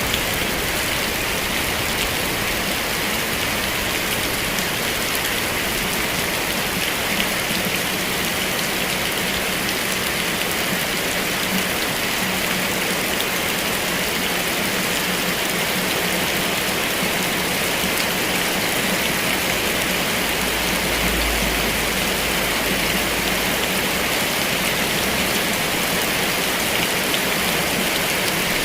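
Heavy rain falling steadily in a dense, even hiss of drops. A low rumble comes in for a few seconds about two-thirds of the way through.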